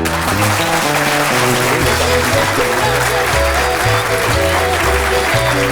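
Upbeat entrance music with a bass line and plucked guitar, and a studio audience applauding a guest's entrance.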